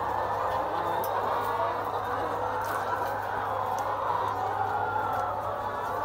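Dense, continuous din of many caged laying hens clucking and calling at once, with a steady low hum underneath.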